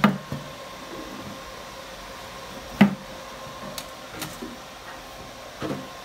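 Three hollow knocks as the homemade Peltier cooler box and its lid are handled, the loudest about three seconds in, over the steady hum of the unit's small cooling fans.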